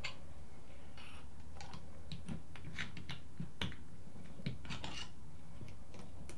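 Irregular small metallic clicks and clinks from a T-handled piston puller being twisted and worked inside a 1985 Suzuki GSX-R750 brake caliper, trying to free a piston stuck fast from years of standing. A steady low hum sits underneath.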